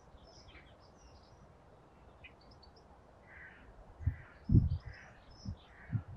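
Garden birdsong: small birds chirping, and a crow cawing about four times in an even series from the middle on. A few low bumps come near the end, one of them loud.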